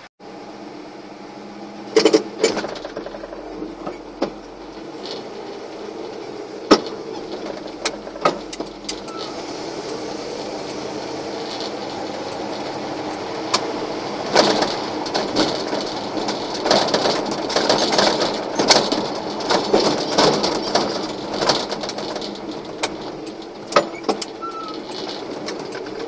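1988 GMC one-ton pickup heard from inside the cab while driving: its small-block V8 running under road noise that builds gradually, with sharp knocks and rattles from the loose cab, including the driver's door.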